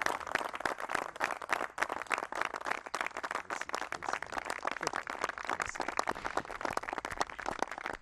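Audience applauding.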